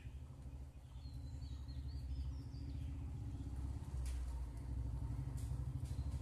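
Low, steady engine rumble from a motor vehicle nearby, growing louder, with a few short bird chirps in the first half.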